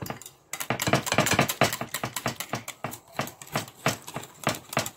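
Wire balloon whisk beating yogurt and cornstarch in a bowl, with a rapid run of clicks and scrapes as the wires strike the bowl. It starts about half a second in. The mix is being beaten until no lumps of starch remain.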